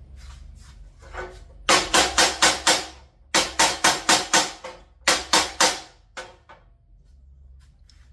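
A wooden baton rapidly beats the spine of a custom steak knife driven into a block of wood, in an abuse test of the edge and the handle's tightness. It comes in three quick runs of blows, about five or six a second, each blow with a short metallic ring, and one or two lighter knocks follow.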